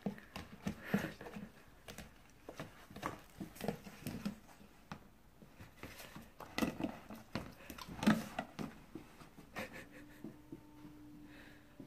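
Golden retriever licking peanut butter out of a plastic jar: irregular wet licks and smacks, with sharp knocks of the jar.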